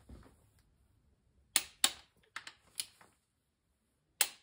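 Torque wrench on a Mopar 440 V8's connecting-rod bolts, tightening them in steps: a handful of sharp metallic clicks at uneven spacing, then a pause of about a second before one more click near the end.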